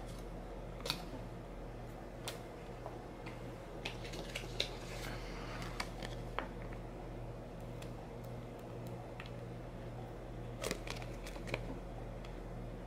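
Faint handling sounds: scattered light clicks, taps and rustles as a refilled coffee capsule, a plastic measuring scoop and a sheet of foil lid stickers are handled on a metal tin lid, over a low steady hum.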